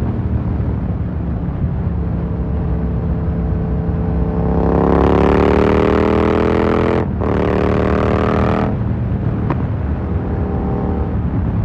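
Yamaha MT-07's parallel-twin engine through an Akrapovic carbon full exhaust, cruising, then accelerating hard about four seconds in. The revs climb, cut out for a moment near the middle at an upshift, climb again, and then the throttle closes and the engine settles back to a steady drone.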